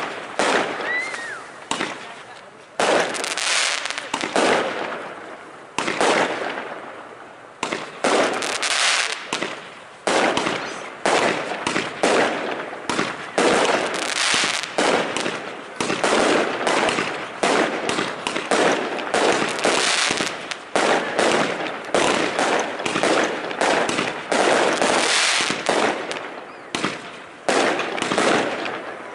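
Fireworks display: aerial shells bursting in a rapid, overlapping series of sharp bangs, each trailing off in echo, often one to three a second with hardly a gap between them.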